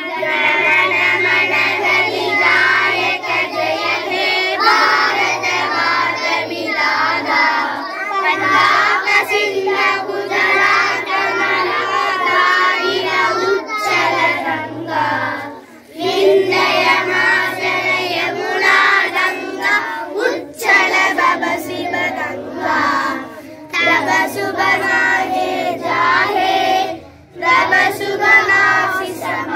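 A group of children singing a song together in unison, with brief breaks between phrases about sixteen seconds in and again near the end.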